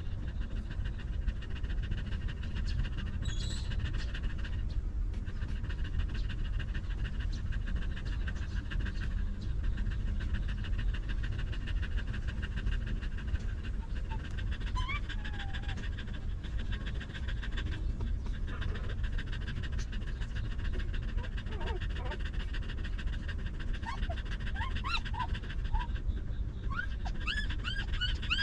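Mother dog panting steadily over a low background rumble. From about halfway through, newborn puppies give short, high, rising squeaks, more and more of them toward the end.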